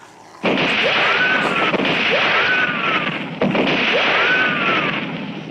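Movie-soundtrack gunshots: a loud shot about half a second in and another about three and a half seconds in, each with a long echoing tail. Whining ricochets ring out three times over the echoes.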